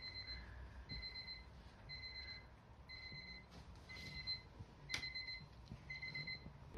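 Electronic alarm beeping faintly, a short high beep about once a second. A soft knock near five seconds in.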